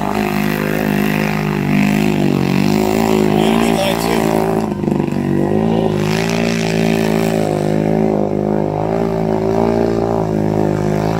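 Kawasaki Brute Force ATV engine held at high revs as it pulls through a mud bog, its pitch sagging briefly a couple of times under the load.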